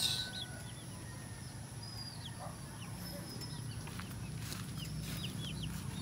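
Day-old broiler chicks peeping in their transport crates: many short, high, falling cheeps scattered throughout, over a low steady hum.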